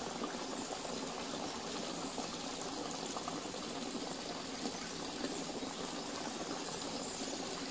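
Water running steadily from the spouts of a stone mountain-spring fountain, an even unbroken rush.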